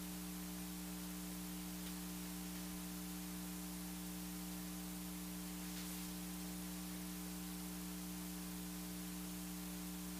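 Steady electrical mains hum over a faint hiss, with no engine, tyre or crowd sound coming through.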